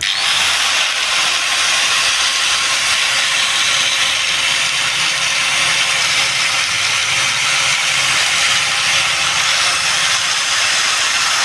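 Hitachi G10SS2 angle grinder with a newly replaced armature, running steadily at speed: a continuous high hiss and whine.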